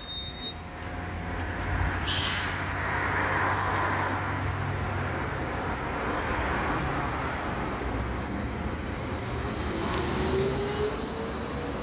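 Trolleybus pulling away from a stop. A short hiss of compressed air comes about two seconds in, then the steady hum of the moving vehicle and its tyres, with a whine rising in pitch near the end as it gathers speed.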